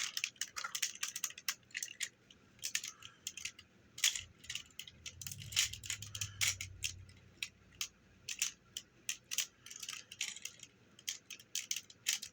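Hard plastic parts of a Super Sentai Engine-Oh Megazord toy clicking and rattling as they are folded out and fitted together by hand, in irregular, quick clicks.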